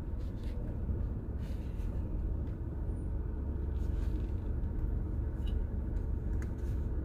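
Low, steady rumble of a car rolling slowly, engine and road noise heard from inside the cabin, with a few faint clicks.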